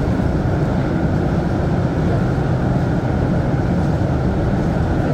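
Montréal Métro MR-73 rubber-tyred train heard from inside the car, running at speed through a tunnel: a loud, steady running noise with most of its weight low, holding even throughout.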